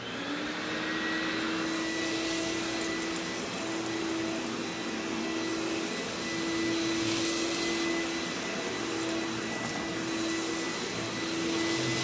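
Hoover backpack vacuum cleaner running steadily with a held whine, its motor settling at full speed in the first moment, while the floor tool is drawn over carpet.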